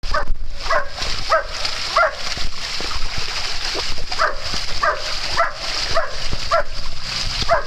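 A dog barking over and over, about ten short barks spaced roughly half a second apart with a brief pause around three seconds in, over the steady rush of a small garden waterfall into a pond.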